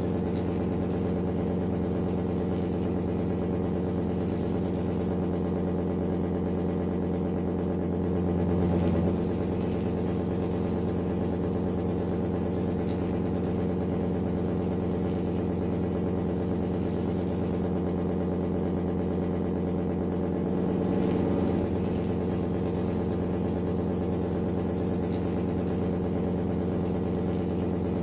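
Engine idling steadily at a constant pitch, rising briefly in level twice, about eight and twenty-one seconds in.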